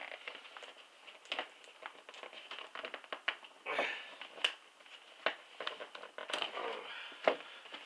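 Cardboard and plastic packaging rustling, crackling and clicking as a model horse is worked out of its box by hand, with a sharper snap about seven seconds in.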